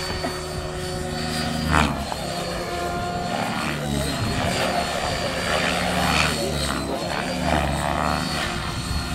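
Radio-controlled helicopter flying 3D aerobatics: its rotor and motor run continuously, their pitch stepping up and down through the manoeuvres. There is one sudden loud burst about two seconds in.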